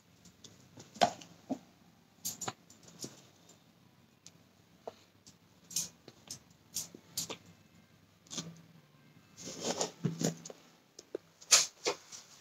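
Short breathy noises from a baby held close to the phone, among scattered soft taps and handling clicks. A longer breathy burst comes near the end, followed by a few louder short ones.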